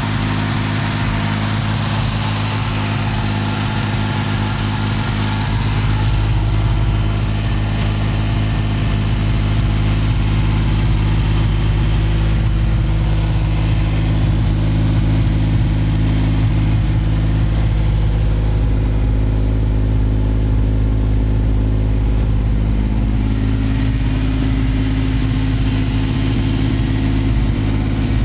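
Ford Granada 2.3-litre V6 fitted in a UAZ, idling steadily at an even pitch.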